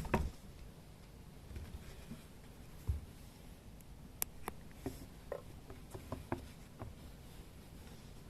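Kittens moving about and playing indoors: scattered light clicks and taps, with a soft thump at the start and another about three seconds in.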